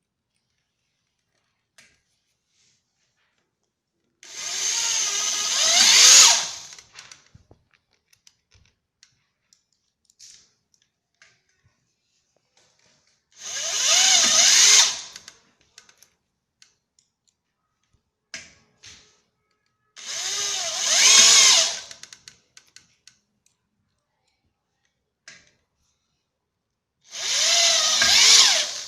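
Power drill driving self-drilling screws, four times, each run lasting about two seconds and growing louder toward its end, with small clicks and taps in between.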